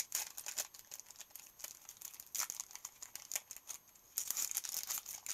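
Pokémon X and Y booster pack's foil wrapper crinkling and tearing as it is opened by hand, in irregular crackles that grow busier about halfway through and again near the end.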